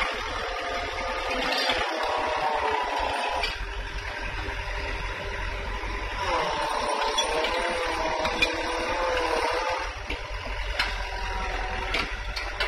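Small tracked hydraulic excavator's diesel engine running, its pitch wavering and swelling twice as the machine works and moves, with a few short clanks.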